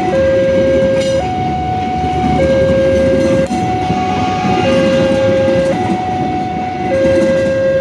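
Railway level-crossing warning alarm sounding its two alternating tones, low then high, each held about a second, over the steady rumble of economy-class passenger coaches rolling past.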